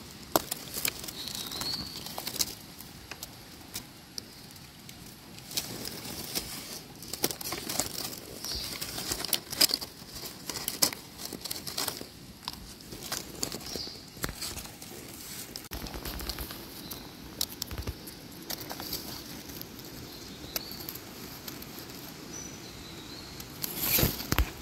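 Small knife and hands cutting and picking wild mushrooms at a tree base and in leaf litter: irregular soft clicks, snaps and rustles, with a louder burst of rustling near the end.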